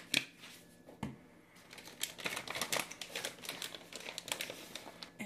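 Plastic bag of shredded cheese crinkling as it is handled, a dense run of quick crackles through the second half, after a couple of light clicks at the start.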